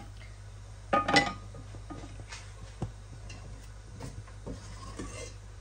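Kitchen dishes and utensils clinking: a short cluster of clinks with a brief ring about a second in, then a few light taps, over a steady low hum.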